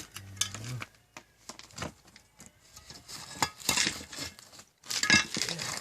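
Hand tools on masonry: a chisel and other metal tools striking and scraping, in irregular metallic clinks and knocks with quieter scraping between them.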